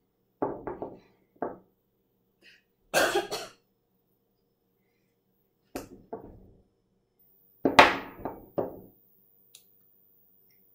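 A woman coughing in several short fits, the loudest about eight seconds in, with a light knock of wooden blocks on a table.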